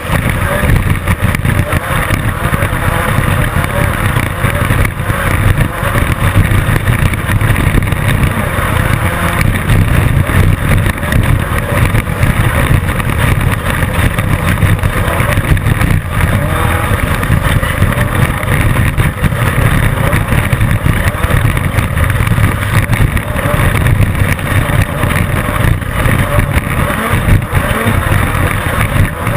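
Class 10 off-road race car running hard at racing speed, its engine noise loud and continuous, with many small knocks and rattles throughout.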